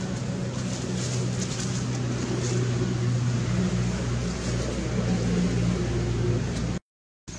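A steady low-pitched hum of an engine running, cut off abruptly near the end by a half-second gap of silence.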